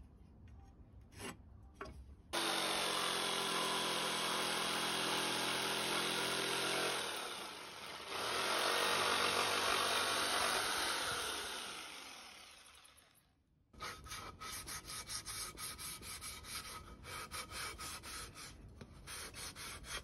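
An electric jigsaw cutting through a wooden beam, its motor running steadily with the blade rasping, easing briefly partway through and then winding down. After that, quick rhythmic strokes of a hand sanding block rubbing over bare wood.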